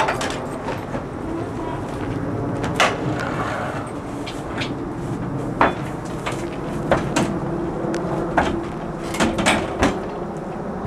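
Horse's hooves knocking on a horse trailer's floor and ramp during unloading: about nine sharp, irregular knocks, three of them close together near the end, over a steady low rumble.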